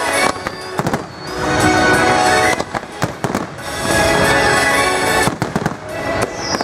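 Fireworks display: shells bursting in several quick clusters of bangs and crackles, over music playing along with the show.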